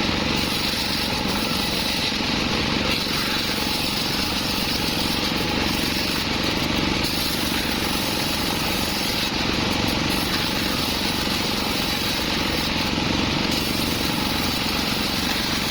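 Portable sawmill running steadily, a continuous engine-and-blade noise with no pauses.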